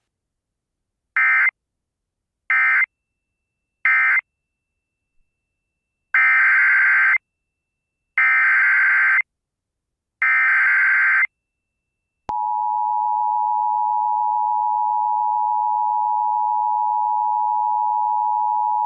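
Emergency Alert System tones: three short SAME data bursts, the end-of-message code, then three longer SAME header bursts for the next alert, each a harsh digital warble about two seconds apart. About twelve seconds in, the steady two-tone EAS attention signal starts and holds.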